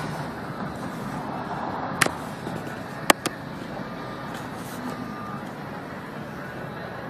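Downtown street ambience: a steady hum of traffic, broken by a sharp click about two seconds in and two more in quick succession about a second later.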